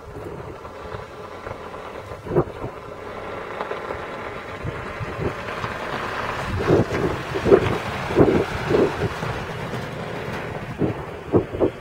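Strong wind buffeting the microphone: a steady rushing that grows stronger about halfway through, with a run of dull gusting thumps after that and a few more near the end.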